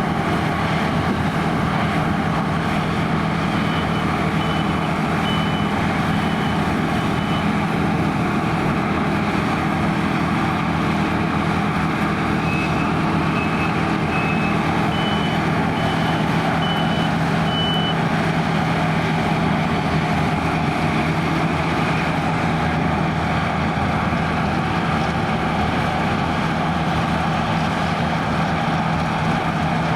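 Claas Lexion 580 Terra-Trac combine harvester running steadily under load while harvesting barley. A few seconds in, and again around the middle, a series of short high electronic beeps sounds over it, the second series stepping up in pitch partway.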